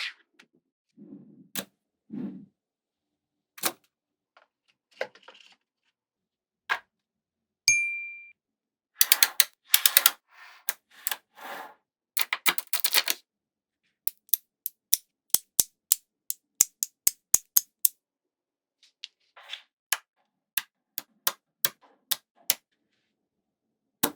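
Small magnetic balls clicking and snapping together: single clicks, dense rattling runs, and an even run of about four clicks a second. There is one short ringing tone about eight seconds in.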